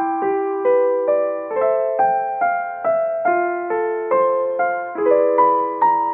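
Background piano music: single notes struck about twice a second in a gentle, even pattern, each ringing and fading.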